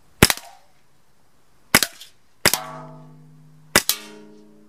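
Sig Sauer P365 CO2 blowback BB pistol firing four shots in quick succession, each a sharp crack with a quick double snap from the blowback slide. After the third and fourth shots a metallic ringing lasts about a second: steel BBs hitting metal cans.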